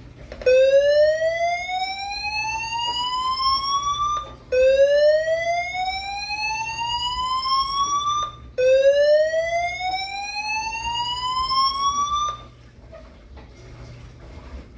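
Building fire alarm voice-evacuation speakers sounding the slow whoop tone: three long rising sweeps, each about four seconds. This is the evacuation signal played between the recorded 'exit the building' messages. The tone stops about twelve seconds in, leaving only a low hum.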